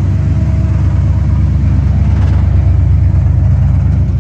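A vehicle engine running loud with a deep, throbbing low rumble.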